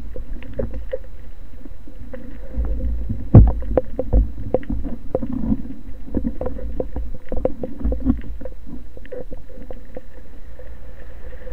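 Underwater sound picked up by a camera housing on a speargun: a steady low rumble of moving water, with many small clicks and knocks as the gun and the fish are handled. A louder knock comes about three and a half seconds in.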